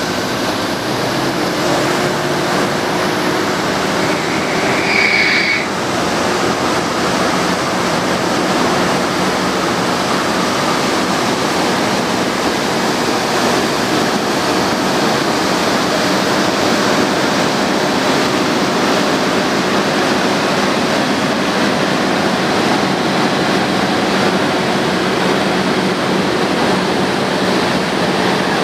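A vacuum sweeper truck running: steady rushing noise from its suction system and engine with a faint steady hum, as it cleans the joints of brick permeable pavers. A brief high-pitched tone sounds about five seconds in.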